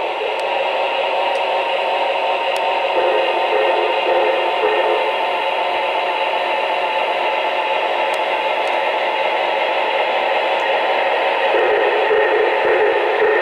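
O-gauge model trains running on a three-rail layout: a steady whirring hiss with no distinct beat, and a few faint ticks.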